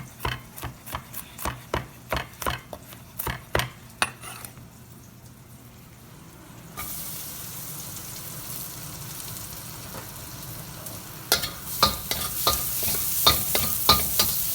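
Knife chopping garlic on a board, about three strokes a second, stopping about four seconds in. After a short lull, a sudden steady sizzle starts as garlic fries in butter in a hot wok. From about eleven seconds in, a utensil scrapes and knocks against the wok over the sizzle.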